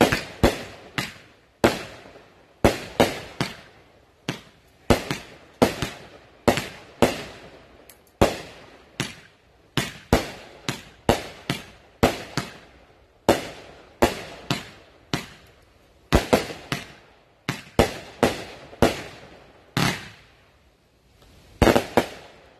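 Grand Patriot Supervillain 25-shot 500-gram fireworks cake firing: a steady run of sharp bangs as the shots lift and burst overhead, one or two a second, each trailing off briefly. It ends with a quick cluster of bangs just before the finish.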